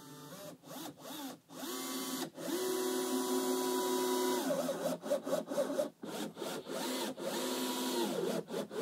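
Cordless drill-driver driving screws into the wooden formwork boards. The motor runs in several trigger pulls, each whining up in pitch and winding back down, the longest held steady for about two seconds near the middle.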